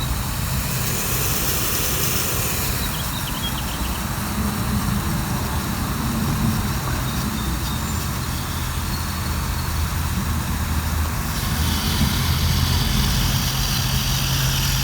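Fix-A-Flat aerosol inflator-sealer hissing as it discharges through its hose into a lawn tractor tire, the hiss stronger near the start and again near the end. A steady low engine-like hum runs underneath.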